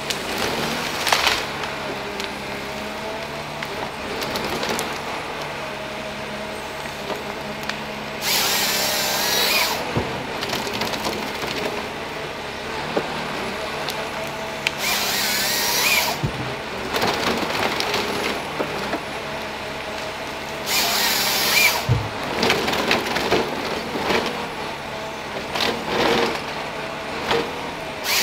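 Ponsse Scorpion forest harvester running steadily while its harvester head processes a stem, with three chain-saw cross-cuts, each lasting about a second and a half, about a third of the way in, halfway and three quarters through, as the stem is bucked into logs.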